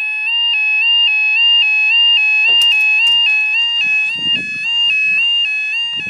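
Level crossing warning alarm sounding steadily as the barriers lower: an electronic two-tone yodel stepping quickly back and forth between two pitches. A short knock about two and a half seconds in.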